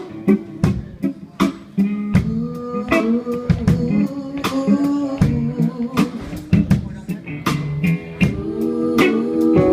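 Live band playing at a sound check: a drum kit keeping a steady beat under guitar, with voices singing.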